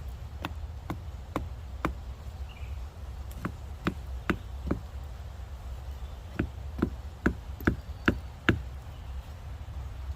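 Hammer blows driving wedges in behind a wooden post to brace it: three runs of sharp knocks, about two a second, the last run of six being the loudest.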